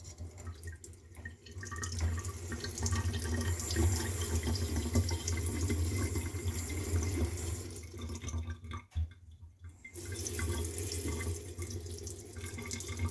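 Kitchen mixer tap running water into the sink, starting about a second and a half in. It stops briefly around nine seconds and then runs again. The water flows without any rattling or whistling, now that the worn tap cartridge has been replaced.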